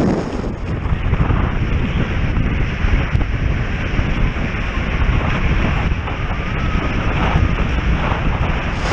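Wind buffeting the microphone of a camera on a windsurf rig under way, a steady heavy rumble mixed with the rush of water under the board.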